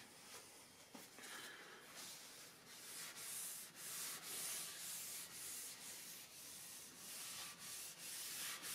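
A pad rubbing back and forth over the flat face of a maple cutting board, spreading a coat of cutting board oil into the wood: a soft, repeated scrubbing swish that picks up about two seconds in.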